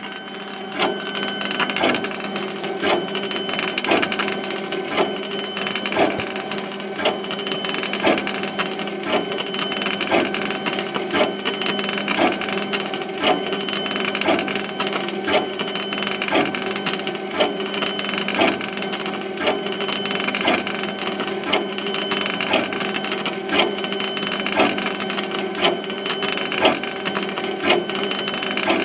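Laser engraver working on a spotted gum board: a steady motor and fan hum with regular clicks about twice a second as the moving head and its stepper motors run back and forth.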